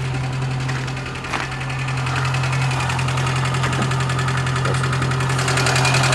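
2008 Chevrolet Niva's 1.7-litre four-cylinder petrol engine idling after a cold start, with a fast, steady knocking that grows louder near the end. The owner suspects some valve.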